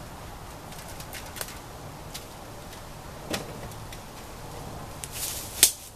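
A few light knocks as a six-pack of beer cans is set on top of a box, then footsteps crunching in dry leaf litter near the end, with one sharp crunch or knock the loudest.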